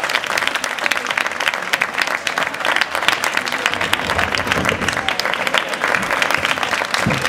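Audience applauding steadily, a dense sustained clapping from a large crowd.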